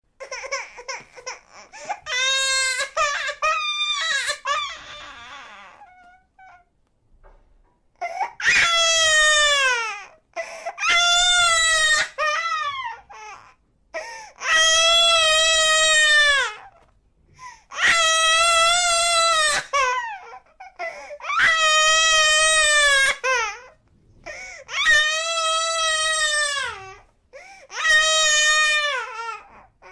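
Baby crying: a few short, broken fussing cries at first, then after a brief lull about seven long wails, each a couple of seconds long and dropping in pitch at its end, with short breaks between them.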